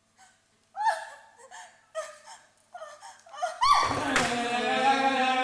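A performer's short, high vocal gasps and cries, several at irregular intervals. About three and a half seconds in, a loud, sustained sound of many held tones sets in abruptly.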